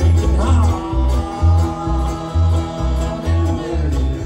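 Live bluegrass band playing, with an upright bass walking out low notes about twice a second under guitar and banjo.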